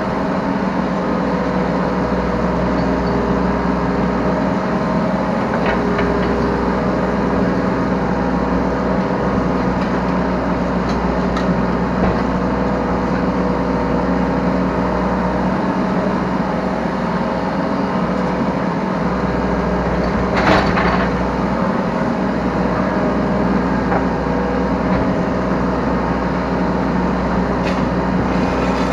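Yanmar B3 Sigma 3-ton mini excavator's diesel engine running steadily under work, heard from the operator's seat, with an occasional metallic knock; the strongest knock is about two-thirds of the way through.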